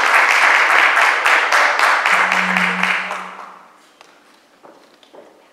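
Audience applauding, dying away after about three seconds into a few scattered faint knocks. A short, steady low hum sounds briefly in the middle of the applause.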